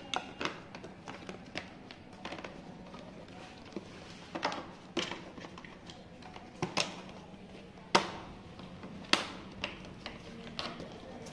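Scattered taps and clicks of hands working plastic and rubber trim and a bolt around a motorcycle's battery compartment, with the two sharpest knocks about eight and nine seconds in.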